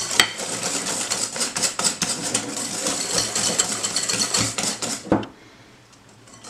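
A wire whisk beats a runny egg, sugar and oil batter in a glass bowl, making a fast, steady clatter of wire against glass. The whisking stops about five seconds in.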